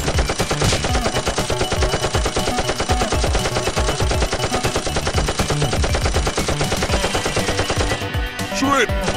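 Rapid automatic gunfire sound effects standing in for Nerf blasters firing, over background music. The fire runs without let-up, with a brief change near the end.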